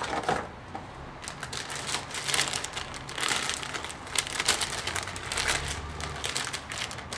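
Metallised anti-static bag crinkling and rustling as a motherboard inside it is lifted from its box and handled: a steady run of irregular crackles.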